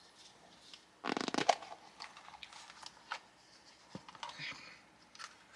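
Plastic Miniverse capsule being twisted and pulled apart: a scraping rustle about a second in that ends in a snap, then light clicks and rattles of the plastic halves and their contents.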